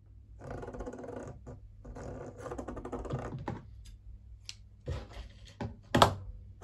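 Thread pulled off a spool of sewing thread, the spool rattling in quick clicks in two spells, followed by a few sharp taps, the loudest near the end.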